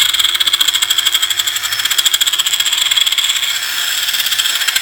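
Ozito 18V cordless circular saw running free with no cut, a steady high whine with a fast rattle in it. It sounds a bit noisy, which the seller, unsure, suspects is a bad bearing.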